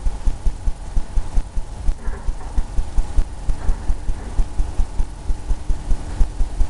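Oil-paint brush dabbing and scrubbing against a stretched canvas: rapid, fairly even low thumps, about five or six a second.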